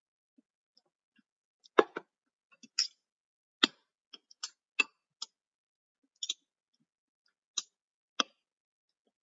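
Eating sounds: about a dozen sharp, irregular clicks and taps, the loudest about two seconds in.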